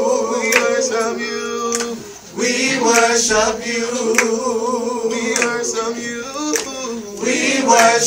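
Small mixed gospel vocal group singing a cappella in harmony, holding long chords with vibrato. The sound breaks off briefly for a breath about two seconds in, then the singing resumes.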